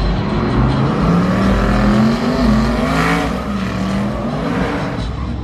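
Pickup truck engine revving hard during a burnout at the drag strip's start line, its pitch rising and falling, with a loud rushing burst about three seconds in.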